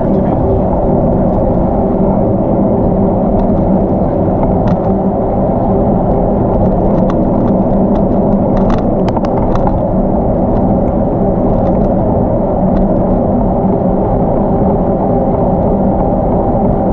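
Steady wind rush on the microphone of a camera carried on a moving bicycle, with the bike's rolling noise underneath. A scatter of sharp clicks comes about seven to ten seconds in.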